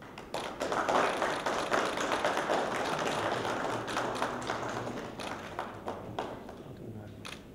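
Audience applauding: a dense patter of many hands clapping that starts about half a second in, is loudest in the first few seconds and thins out towards the end. A couple of separate sharp clicks come near the end.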